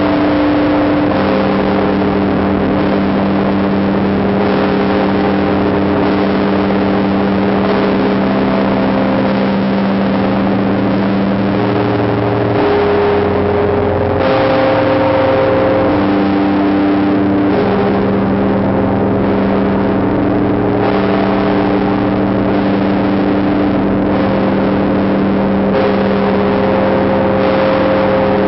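Russian Orthodox church bells ringing in a continuous peal: the Tsar Bell of the Trinity Lavra of St. Sergius gives a deep, long-held hum, and several other bell tones sound over it, overlapping as new strikes come in and old ones fade.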